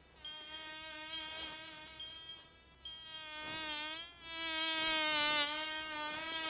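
A fly buzzing around, its drone wavering in pitch, dropping away briefly about four seconds in and then louder through the second half. A high, repeated heart-monitor beep sounds under it in the first half.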